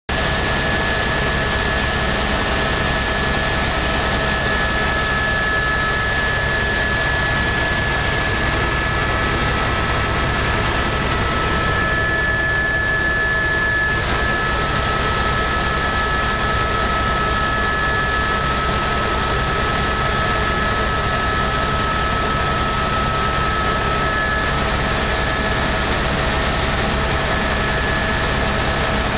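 Eurocopter AS355 helicopter in flight: a steady drone of the rotors and turbines with a high, even whine; one of the whine's tones shifts a little lower about halfway through.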